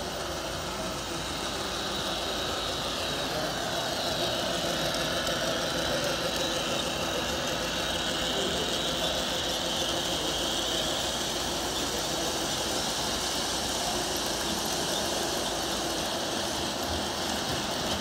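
Model freight train running along the layout's track: a steady whirring rumble of its motor and wheels on the rails that grows louder a few seconds in as the train passes close.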